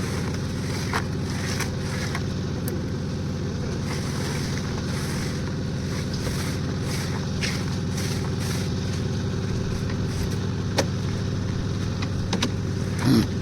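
Concrete mixer's engine running steadily, with a few faint clicks over it.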